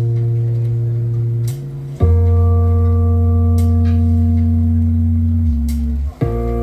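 Live band music opening a song: a deep held bass note under sustained chord tones. The chord changes about two seconds in and again near the end.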